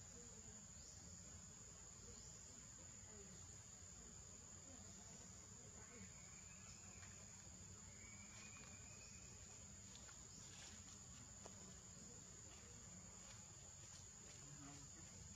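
Faint, steady high-pitched insect drone, with a few faint short chirps about halfway through.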